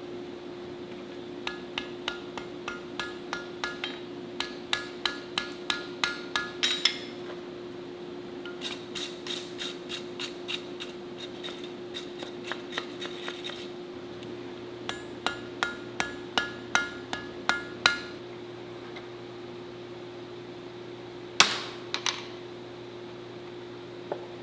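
Hand hammer striking hot steel on an anvil to set a forge weld that has just stuck. The strikes come in three runs of quick, ringing blows, two or three a second and growing louder within each run, followed by two single blows near the end, over a steady hum.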